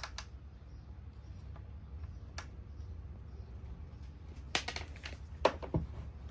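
Light clicks and knocks of small screws and plastic vacuum-housing parts being handled during reassembly. They come singly near the start and about two and a half seconds in, then in a quick cluster past the middle, over a steady low hum.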